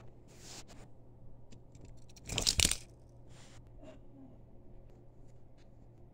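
Handling noise: a few short rustles and light clicks, with one louder rustle about two and a half seconds in.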